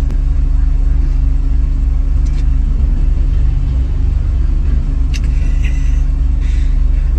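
A loud, steady low rumble with a constant hum, starting suddenly and holding level throughout.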